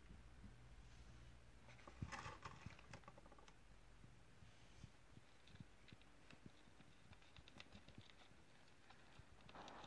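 Near silence, broken by faint clicks and scratches: a quick cluster of clicks about two seconds in, scattered single ticks after it, and a short rustle near the end.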